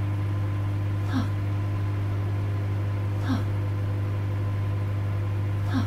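Microwave oven running with a steady low electrical hum, over which a short sound drops in pitch three times, about two seconds apart.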